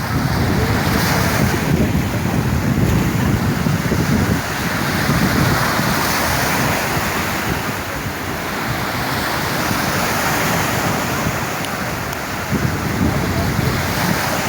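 Sea waves washing onto the shore, rising and falling in slow surges, with wind rumbling on the microphone.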